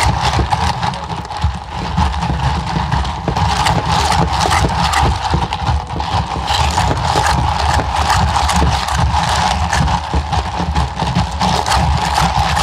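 A drink being shaken hard by hand in a covered plastic cup, with a fast, steady rattle of knocks that keeps going without a break.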